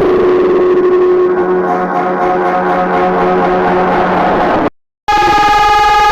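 Outdoor warning siren sounding a steady tone over background noise. Near the end the sound cuts to silence for a moment, and a different siren starts, sounding a higher, brighter steady tone.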